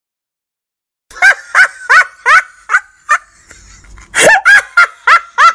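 About a second of silence, then a quick run of short, high-pitched yelping vocal calls, about three a second, each rising and falling in pitch, with a brief lull midway.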